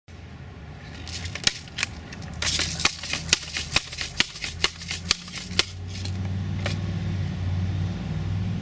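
A run of about ten sharp mechanical clicks, roughly two a second, as a Daisy Powerline 880 multi-pump air rifle is readied for a shot. One more click follows a little later over a steady low hum.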